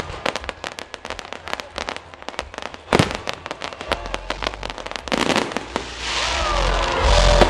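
Fireworks display: a dense crackle of many small pops from the bursting shells, with one loud bang about three seconds in. In the last few seconds a louder, continuous rushing rumble builds.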